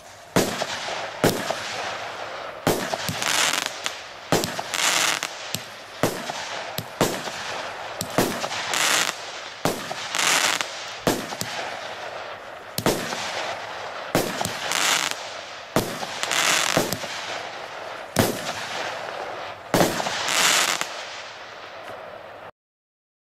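A Piromax Ring 16-shot, 20 mm fireworks cake firing: a steady run of shots about a second apart, each with a sharp bang and a hissing crackle of glittering stars after it. The firing cuts off suddenly near the end.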